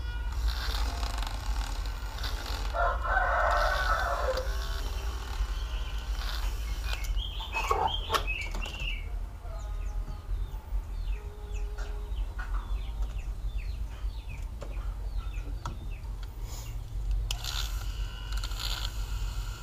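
A rooster crowing in the first half, followed by many short, high bird chirps.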